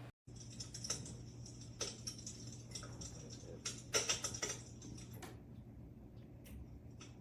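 Electric fireplace insert playing its simulated fire-crackling sound: irregular sharp pops and crackles, densest about four seconds in and sparser near the end, over a steady low hum.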